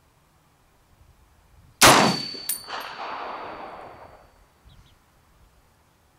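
A single shot from an M1A National Match rifle in .308: a sharp report about two seconds in that echoes away over the next two seconds, with two metallic clinks and a high ring just after it.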